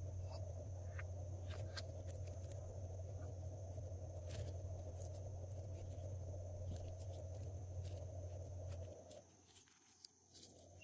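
Glossy slime being squeezed and mixed, giving scattered small sticky clicks and crackles over a steady low hum that stops about nine seconds in.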